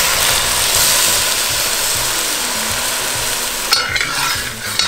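Sherry poured into a hot enamelled pot of sautéed onion, carrot, celery and tomato paste, sizzling hard as it deglazes the pan. The sizzle is loudest at first and slowly dies down. Near the end a spoon starts scraping and stirring the pot.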